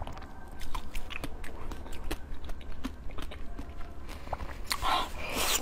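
Close-miked mouth sounds of someone chewing a cream-filled dessert: a string of short wet clicks and smacks. A louder, noisier stretch of mouth noise comes near the end.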